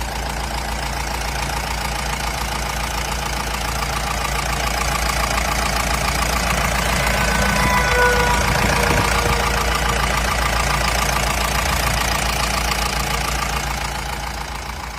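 Mahindra Bolero Pickup's diesel engine idling steadily with its knocking clatter. It grows a little louder toward the middle and fades away near the end.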